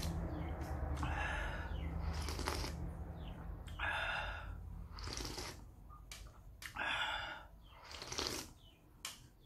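Close-up slurping and chewing of instant noodles with green beans, about six short slurps a second or so apart. A low hum sits under the first few seconds.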